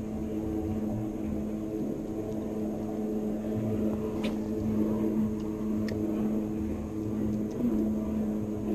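Steady low motor hum, even in pitch, with a couple of faint ticks about four and six seconds in.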